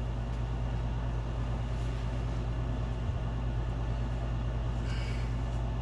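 Steady low hum of workshop room tone with no distinct events.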